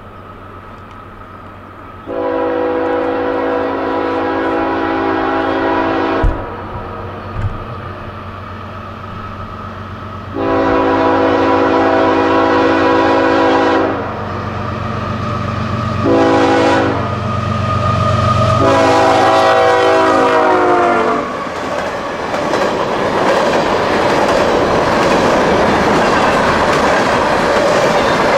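CSX diesel freight locomotive sounding its air horn for the grade crossing: long, long, short, long. The last blast drops in pitch as the locomotive passes, over a steady low engine drone. Then the freight cars roll past with continuous wheel-on-rail noise.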